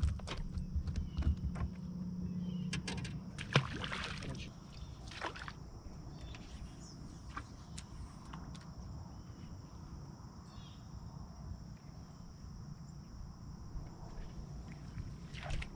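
Water sloshing against a bass boat's hull under a low steady hum, with scattered clicks and knocks from rods, reels and a fish being handled, busiest in the first few seconds.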